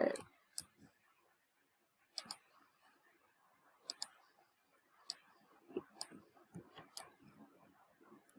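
Computer mouse clicking: sharp single clicks and several quick double-clicks, about one every second.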